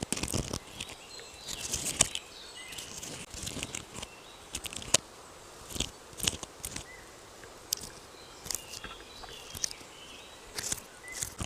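Irregular crackles and rustles close to the microphone, like dry forest-floor material being handled or stepped on, with faint bird chirps behind.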